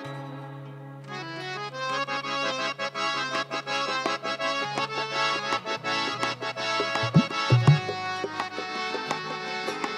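Instrumental passage of a live worship band: a reedy, sustained melody over a held bass note that steps lower about seven seconds in, with drum strokes coming in after about a second.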